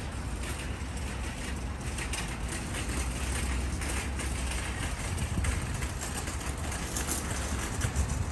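Steady outdoor background noise: a low rumble with an even hiss over it and a few faint clicks.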